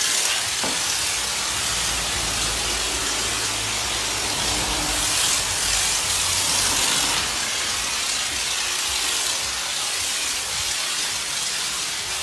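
High-pressure spray wand of a coin-operated self-service car wash hissing steadily as it sprays shampoo onto a car.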